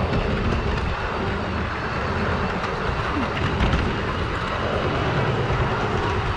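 O gauge model train running along garden track, heard from a camera riding on it: a steady rumble of wheels on the rails and the drive's drone, with a few faint clicks.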